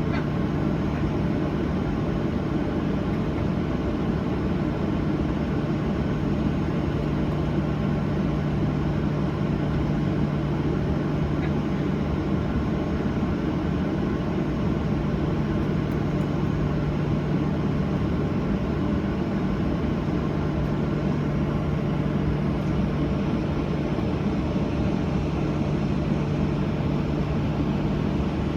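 Steady cabin hum inside a Boeing 737-800 airliner, an even low drone with a steady tone that does not rise or fall.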